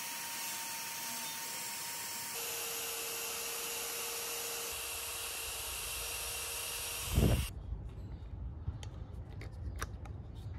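Die grinder running steadily with an aluminium-cutting bit, porting the aluminium intake ports of a Honda cylinder head: a steady hiss with a faint whine. About seven seconds in it stops with a thump, followed by light clicks and scraping as the head and gasket are handled.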